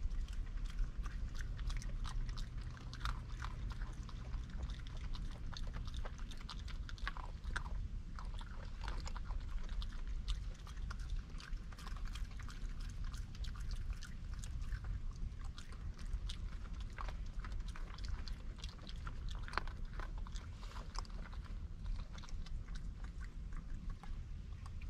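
Raccoons chewing and crunching shelled peanuts, with a continual irregular patter of small clicks and crackles as nuts are picked up and bitten, over a steady low hum.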